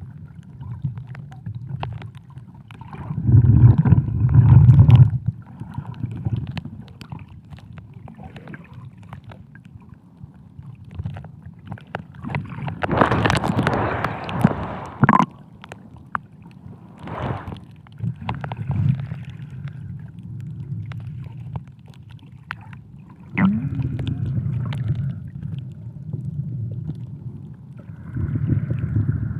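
Muffled underwater sound picked up by a submerged camera: a low rumble with gurgling water, swelling louder in patches, and a louder rushing burst about 13 seconds in.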